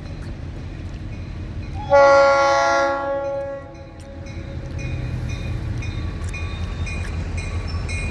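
Florida East Coast Railway diesel locomotive running light, without cars: one horn blast about two seconds in, lasting about a second and a half, over the steady low rumble of its diesel engine as it nears.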